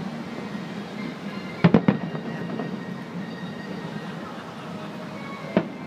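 Distant aerial fireworks bursting: a quick cluster of about three sharp bangs just under two seconds in, and another single bang near the end, over a steady background noise.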